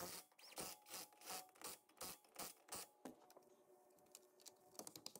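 Faint rubbing and scraping of a plastic wheel cover being handled and pressed onto a steel car wheel: a quick run of short scuffs for about three seconds, then a few light clicks near the end.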